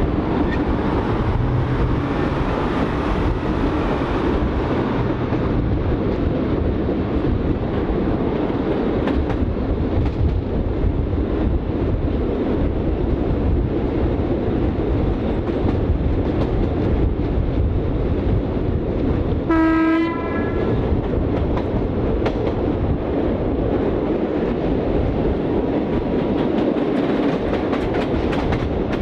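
1920s CPH 'Tin Hare' diesel railmotor running along the track, a steady rumble of engine and wheels with occasional clicks over rail joints. A single short horn blast sounds about two-thirds of the way through.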